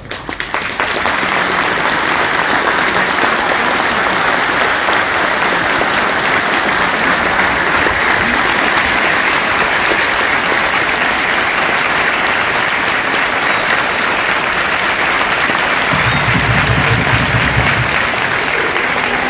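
Large stadium crowd of football fans applauding, a dense steady clapping that swells up about a second in and holds.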